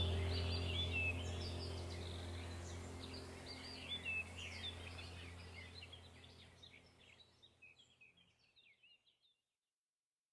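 Birds chirping over a steady low hum, the whole sound fading out gradually to silence about nine seconds in.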